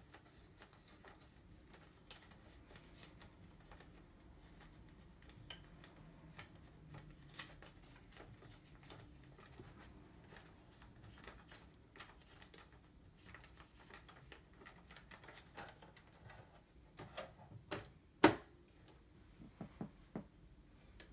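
Quiet plastic clicks and rustling as a paper roll is fitted into a Brother QL-820NWB label printer, with a cluster of louder clicks near the end and one sharp plastic snap about eighteen seconds in as the printer's lid is shut.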